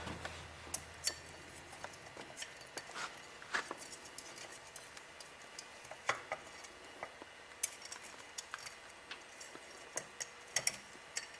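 Irregular light metal clicks and clinks from a retaining clip (snap ring) being worked into place inside an automatic transmission, among the parts of its clutch pack.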